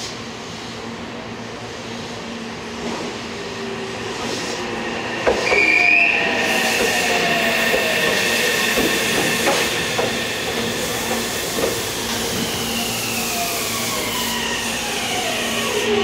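Meitetsu electric train pulling into the station. About five seconds in it gets louder with a knock, and a steady high wheel squeal follows. Near the end a whine falls steadily in pitch as the train brakes to a stop.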